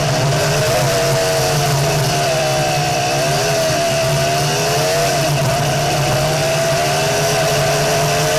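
Off-road buggy engine running as the buggy drives, its pitch dipping twice as the throttle eases and then climbing steadily near the end.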